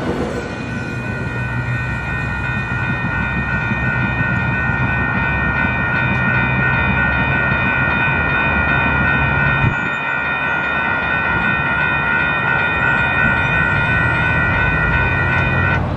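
Grade-crossing warning bells ringing steadily, cutting off suddenly near the end once the gates have risen. Beneath them is the low rumble of a departing NCTD Sprinter diesel railcar.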